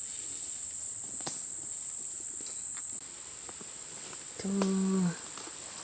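Woodland insects giving a steady, high-pitched drone. About four and a half seconds in, a brief low hum of steady pitch lasts about half a second and is the loudest sound.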